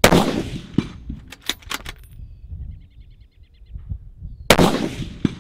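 Two rifle shots from a bolt-action Ruger Precision Rifle, one at the start and one about four and a half seconds later, each with a long echoing fade. Between them the bolt is worked with a few quick metallic clacks.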